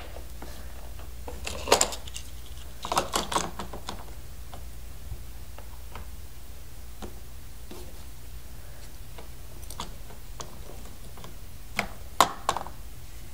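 Plastic toy playset pieces being handled and fitted together: clusters of light clicks and knocks about two seconds in, around three seconds and again near the end, with faint ticks between, over a low steady hum.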